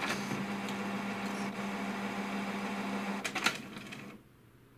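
HP DeskJet 2130's paper-feed motor and mechanism running with a steady hum for about three seconds. A few clicks follow, and it winds down and stops about four seconds in. It is a colour-copy cycle that ends in an error, which the owner puts down to poorly cleaned pick rollers or a fault in the mechanism.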